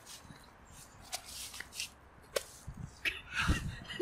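Rustling and light knocks of a person shifting about and getting up from a bench, with a louder dull thump about three and a half seconds in.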